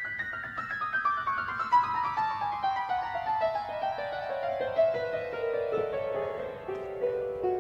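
Soundtrack music: a piano playing a long run of notes that steps steadily down in pitch.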